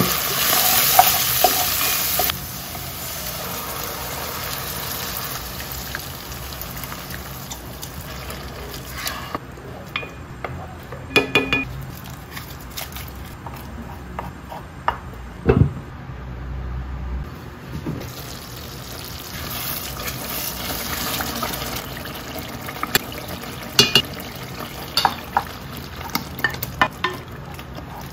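Pot cooking: ground meat and onions sizzle loudly for the first two seconds, then a wooden spoon stirs a thick tomato meat sauce with wet, sloppy stirring sounds. Several sharp knocks of the spoon against the pot are spread through it.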